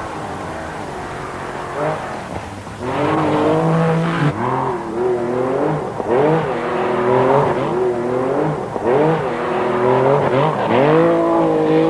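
Porsche Carrera's flat-six engine driven hard at rally pace, revving up and dropping in pitch at each gear change about five times. It is quieter for the first few seconds and louder from about three seconds in.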